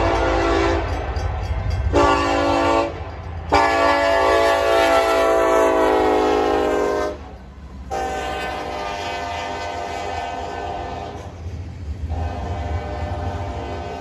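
Nathan K5LLA five-chime air horn on a Union Pacific diesel locomotive sounding for a grade crossing. A blast cuts off under a second in, a short blast comes about two seconds in, and then three long blasts follow, all over the low rumble of the passing train.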